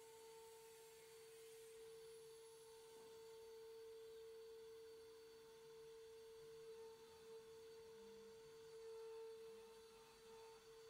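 The 3.5 kW air-cooled spindle of a 1325 CNC woodworking router runs at a steady speed, giving a faint, pure whine at a single pitch.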